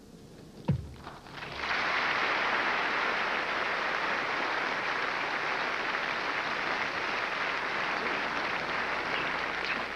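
Large audience applauding, swelling in about a second and a half in and then holding steady.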